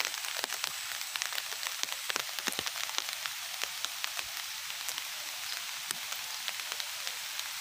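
Steady rain, with a dense patter of sharp raindrop ticks.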